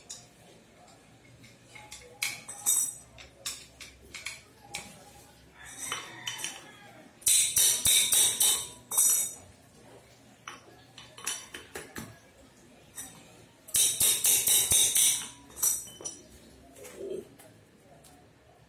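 Metallic clinking and rattling of a steel rod worked inside a motorcycle front wheel hub, knocking at the wheel bearings to drive them out. Scattered single clinks, with two quick runs of rapid strikes, one about seven seconds in and one about fourteen seconds in.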